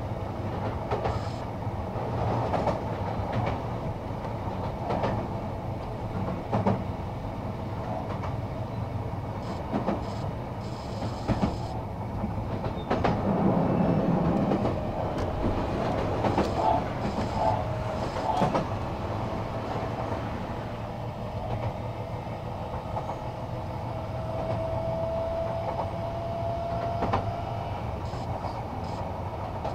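Sotetsu Series 20000 electric train heard from inside the car while running: a steady rumble of wheels on rail, with scattered clacks over rail joints. Near the end a faint traction-motor whine rises slightly in pitch.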